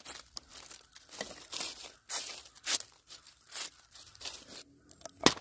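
Dry twigs and dead leaves crackling and rustling as a hand pulls and sweeps them off a tree stump, in a string of irregular bursts, with one sharp crack near the end.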